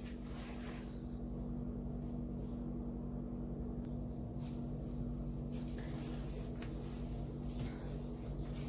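A steady low hum, with faint soft rubbing and pressing sounds of hands working pie-crust dough into a ball on a tile countertop.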